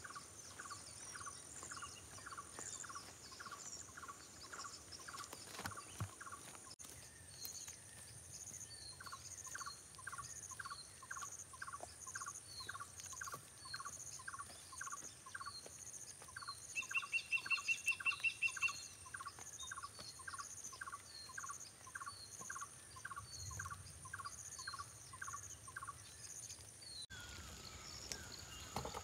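Birdsong and insects in quiet countryside: a bird repeats a short falling call about two to three times a second over a steady, high pulsing insect buzz. A fast, high trill sets in about seventeen seconds in and is the loudest sound, lasting about two seconds.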